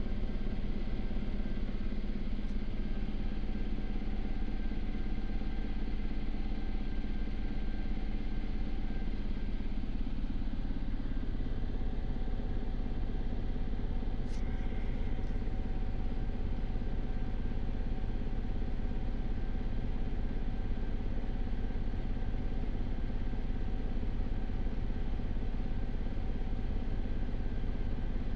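Steady cabin drone of a Sikorsky S-92 twin-turbine helicopter in cruise, heard from inside the cockpit: a constant mechanical hum with several steady tones from the engines, gearbox and rotors. A single short click comes about fourteen seconds in.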